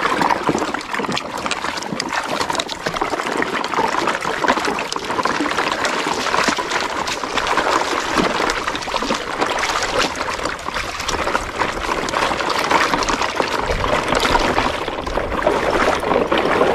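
Shallow stream water trickling and splashing around a plastic toy truck and its trailers as they are pushed through the water. The sound is a steady, crackly watery patter.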